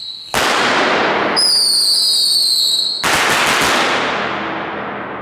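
Small consumer fireworks going off in a concrete underpass. A loud hiss starts just after the beginning, a falling whistle sounds over it, and then a second loud crackling burst comes about three seconds in and fades away slowly in the tunnel's echo.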